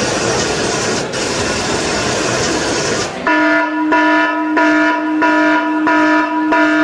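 Soundtrack effect of a passing train: a loud rushing rumble for about three seconds, then a horn-like chord that re-sounds a little under twice a second.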